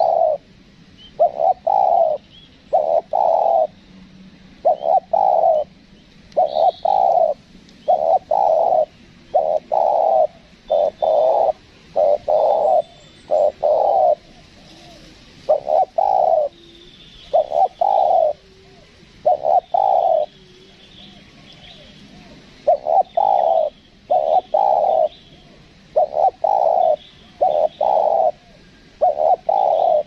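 Spotted dove cooing: a steady series of short, low coos, many in pairs, roughly one every second, with a brief pause about two-thirds of the way through. Faint chirps of small birds sound behind the coos.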